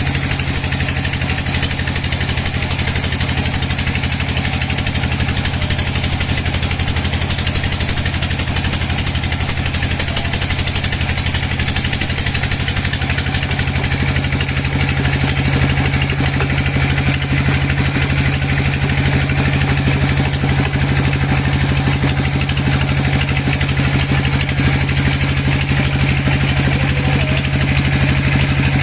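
Sawmill's engine running steadily at an even pitch, with no change in speed.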